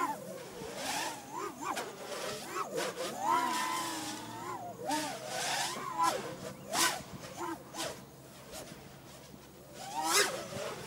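A 7-inch FPV quadcopter's 2207.5 brushless motors and propellers buzz, their pitch rising and falling with short bursts of throttle. The loudest burst comes near the end, after a quieter stretch.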